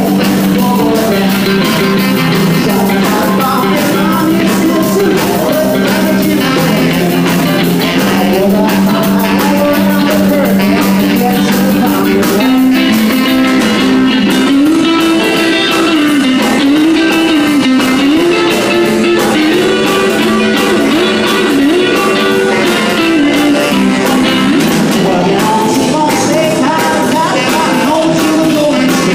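Live rock and roll band playing, with electric guitar, upright double bass, electronic keyboard and drum kit.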